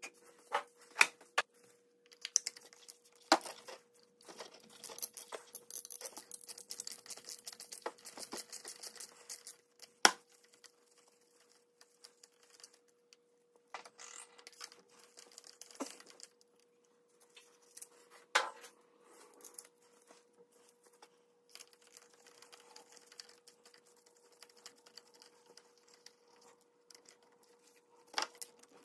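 Hand socket ratchet clicking in a rapid run for several seconds, as ignition-coil bolts and spark plugs are worked loose on a four-cylinder engine, with sharp metal clinks of tools against the engine now and then.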